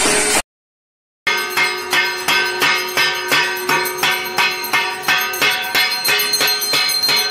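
Ringing metal struck in a steady rhythm of about two to three strokes a second, after a brief silence near the start.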